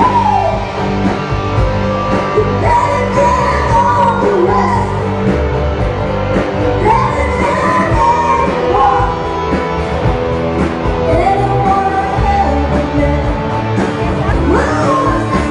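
Live rock band playing with a female lead singer singing into a microphone.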